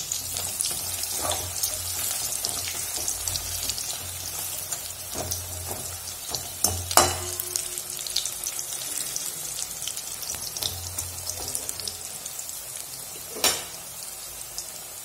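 Batter-coated okra fritters frying in hot oil in a metal kadai: a steady, crackling sizzle, with two sharp knocks, one about seven seconds in and one near the end.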